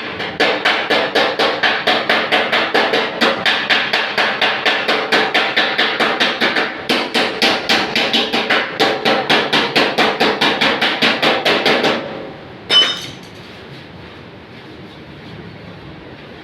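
Hammer beating out dents in a car's sheet-metal body panel, rapid even blows about five a second. The hammering stops about twelve seconds in, with one more single blow shortly after, leaving a low steady background hum.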